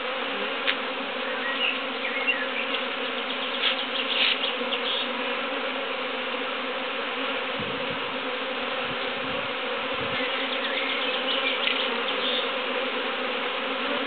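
A prime swarm of honeybees humming steadily as it flies around and settles onto the front of its hive: a dense, unbroken buzz.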